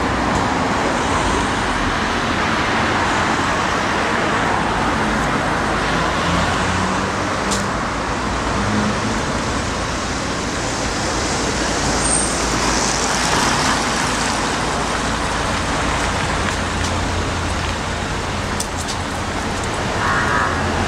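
Steady road traffic noise on a city street: cars and other vehicles passing in a continuous wash of engine and tyre noise.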